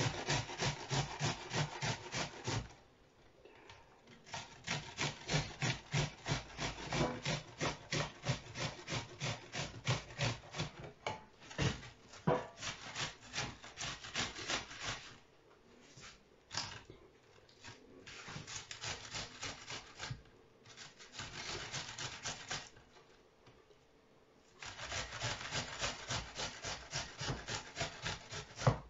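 Onion being grated by hand on a stainless steel box grater: rhythmic rasping strokes, a few a second, in runs broken by short pauses.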